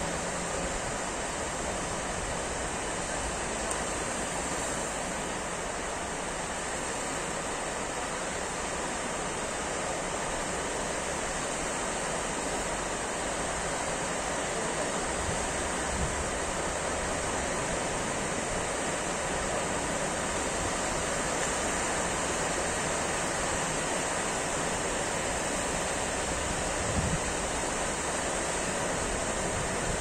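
Small sea waves breaking and washing onto a stony shore: a steady hiss of surf. Two brief low thumps stand out, one about halfway through and a louder one near the end.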